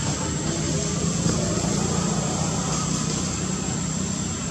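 Steady, low engine drone of motor traffic running on without a break.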